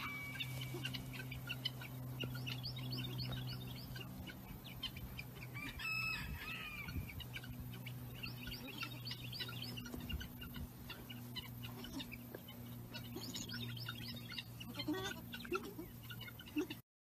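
Farmyard birds: chickens clucking and small birds chirping in short repeated bursts, with one longer pitched call about six seconds in, over a steady low hum.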